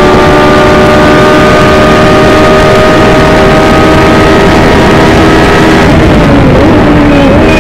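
Cosworth DFV V8 of a 1982 McLaren MP4/1 Formula One car, heard from the cockpit, running hard at high revs with a steady, slowly climbing pitch. About six seconds in, the note drops and wavers as the car comes off full throttle for the next corner.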